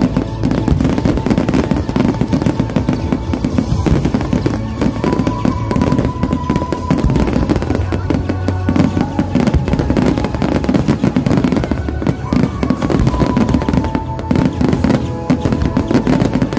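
A rapid, unbroken barrage of aerial firework shells bursting and crackling, with music playing along underneath.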